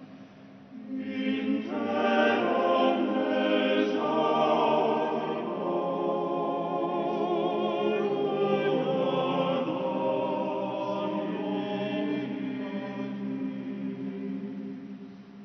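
Choir singing a sacred chant in long held notes, rising in about a second in and fading away near the end.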